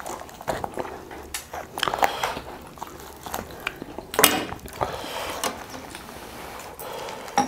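A whole roast duck being pulled apart by hand and fork on a wooden cutting board, the meat coming away from the bone: scattered clicks and crackles, the loudest a little past the middle.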